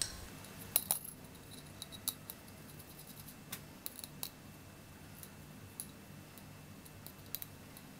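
Scattered light metallic clicks and ticks of M5 bolts and nylock nuts being handled and fitted by hand to a CNC router's gantry plate and nut block, the loudest about a second in.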